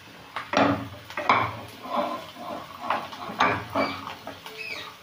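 Spatula stirring and scraping diced potatoes around a non-stick kadai, in a run of irregular short strokes.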